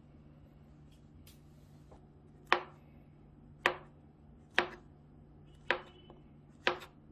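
Kitchen knife slicing a peeled banana on a plastic cutting board: five sharp knocks of the blade hitting the board, about one a second, starting a couple of seconds in.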